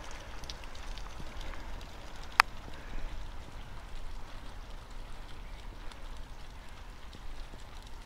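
Snowmelt water running down inside a metal downspout, a steady rushing with many small drips and splashes, and one sharp click about two and a half seconds in.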